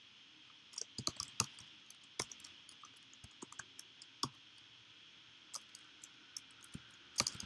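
Computer keyboard keystrokes: scattered clicks, a few at a time, breaking into a quicker run of typing near the end, over a faint steady hiss.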